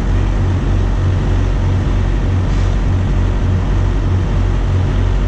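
Steady low rumble with a slight pulsing and an even hiss over it.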